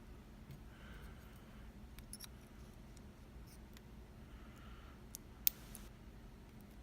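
Faint, scattered small clicks and taps of a disassembled pin-tumbler lock's parts being handled, with one sharper click about five and a half seconds in.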